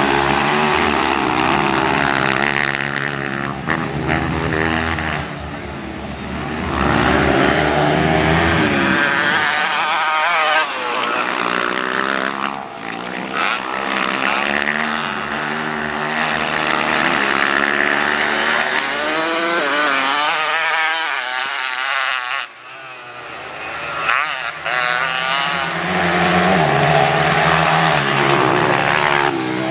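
Trail motorcycle engine being ridden hard, revving up and down again and again, with a brief drop in revs about two-thirds through.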